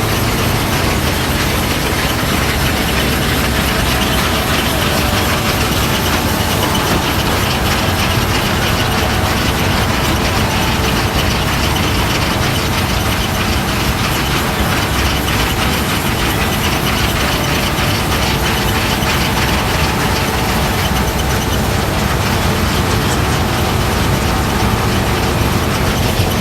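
Harvest machinery running steadily: a low engine drone under a dense, even mechanical clatter.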